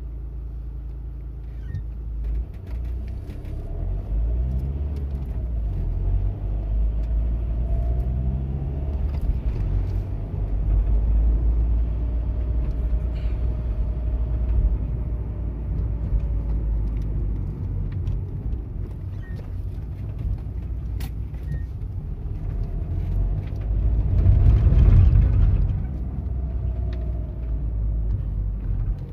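Car heard from inside the cabin: a steady low engine and road rumble that grows as it pulls away from traffic lights and drives on. Near the end comes a louder rush of noise lasting about two seconds.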